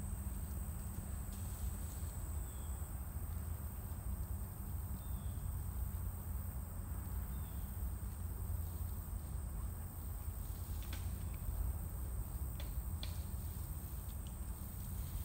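Outdoor woodland ambience: a steady low rumble under a high, steady insect trill that stops about three seconds in, with three faint short chirps early on and a few faint clicks or snaps near the end.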